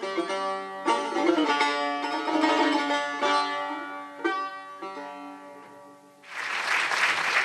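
Persian tar played solo: plucked notes that ring and fade as the piece closes, the last ones about four to five seconds in. About six seconds in, the audience breaks into applause.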